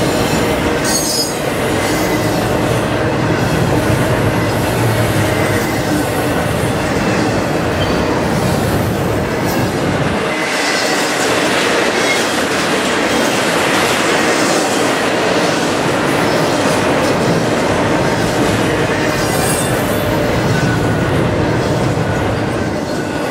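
Double-stack intermodal container cars rolling past over a steel railway trestle: a steady, loud rumble and clatter of wheels on rails, with a thin high wheel squeal at times.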